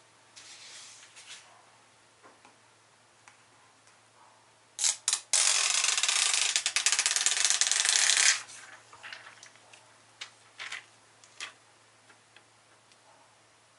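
An adhesive ScreenPad information sheet being peeled off a laptop touchpad: a loud crackling peel lasting about three seconds, just after two sharp clicks. Before it there is light rustling of the paper sheet lifted off the keyboard, and afterwards a few soft clicks as the plastic sheet is handled.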